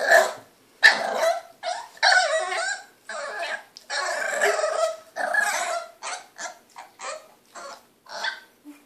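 A French bulldog puppy barking and growling over and over, impatient. The calls turn short and quick in the last few seconds.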